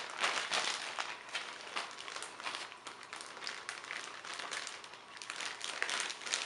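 Packaging crinkling and rustling in irregular crackles as it is handled and opened.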